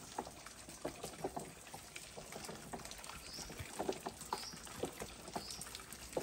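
Water trickling and splashing, with many small irregular drips and splashes. A short high chirp sounds three times, about a second apart, in the second half.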